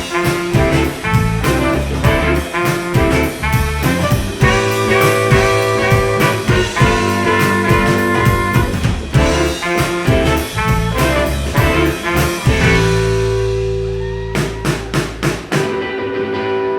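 Live band playing an instrumental passage: horns over drum kit and bass. About twelve seconds in, the band holds one long chord while the drums hit accents, then comes back in near the end.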